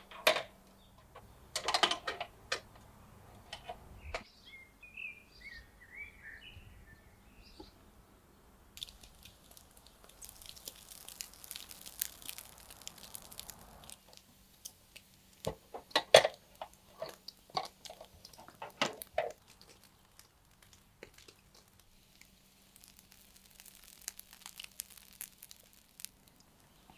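Metal skewers clink and clatter against a steel mangal grill as they are laid across it and turned, in short clusters of sharp knocks near the start and again past the middle. A bird chirps a few times early on, and a soft sizzling hiss from lamb fat cooking over the coals comes in between.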